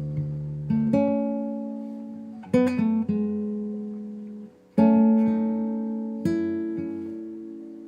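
Background music: an acoustic guitar plucking slow chords, each one left to ring and fade before the next.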